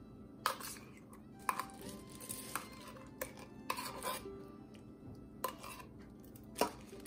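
Hands placing canned apple pieces from a tin can into a plastic-lined slow cooker: about six sharp light knocks and clinks at irregular intervals, over soft background music.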